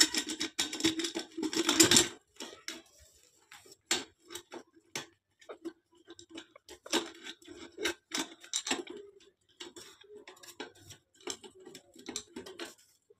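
Nuts being turned off the bolts of an electric water heater's heating-element flange by hand: small metal clicks and rattles, thickest in the first two seconds, then scattered ticks.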